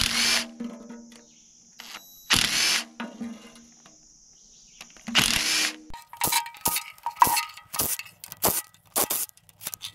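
Cordless impact driver spinning out the oil pan bolts on an upside-down Ford 429 big-block, in three short bursts about two and a half seconds apart. These are followed by a quick run of sharp clicks and knocks of the tool and bolts over the last few seconds.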